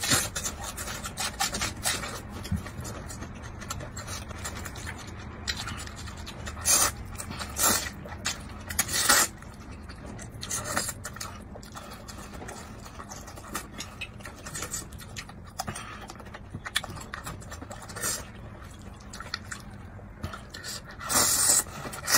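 Close-up eating sounds: crisp bites of raw onion and green chili, wet chewing, and noodle slurping, as a string of sudden crunches and slurps, with a longer slurp near the end.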